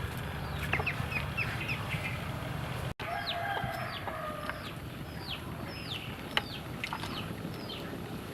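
Chickens: chicks peeping in short, falling chirps, about two a second, over a low steady background rumble. The sound drops out for an instant about three seconds in.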